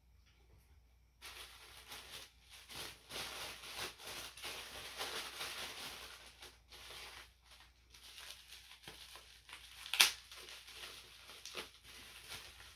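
Paper packaging being unwrapped by hand: continuous rustling and crinkling with small tearing sounds, starting about a second in, and one sharp snap about ten seconds in.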